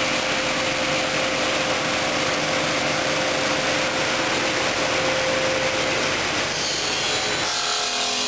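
Stone bridge saw's diamond disc cutting through a stone slab under water, a steady grinding hiss with a steady hum that stops about six seconds in. The sound changes character near the end.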